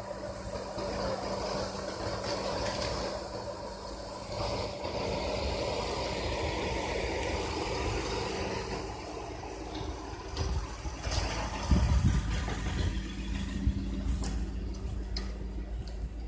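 A motor vehicle's engine idling steadily with a constant low hum, and a few loud thumps about twelve seconds in.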